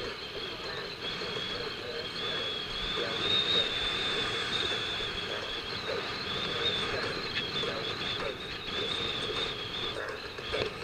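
Road traffic and wind noise heard while riding a bicycle, with a steady high-pitched whine throughout.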